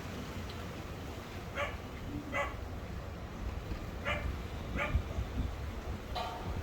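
A dog barking repeatedly: five short barks in loose pairs, the last near the end.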